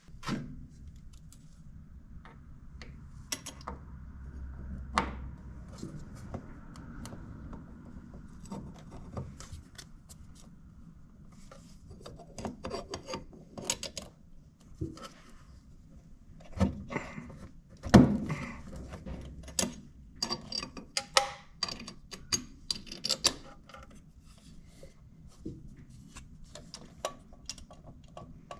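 Small metal fittings and hand tools being handled: scattered clicks, taps and rubbing, with one sharp knock about eighteen seconds in.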